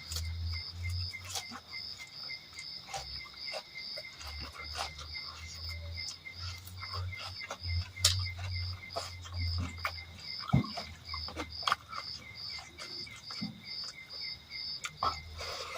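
Crickets chirping in a steady, even pulse, about two to three chirps a second. Over them come scattered short clicks and smacks of someone eating.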